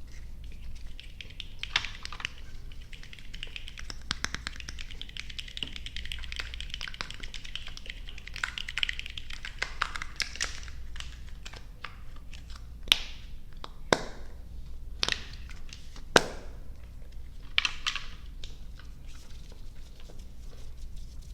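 Close-miked chewing of soft, sticky gummy and marshmallow candy. A dense wet crackle runs through the first half, followed by a handful of sharp mouth clicks and smacks.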